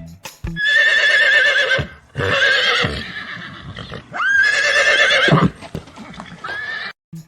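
A horse whinnying three times, each neigh high and quavering in pitch; the last one trails off more quietly and cuts off abruptly.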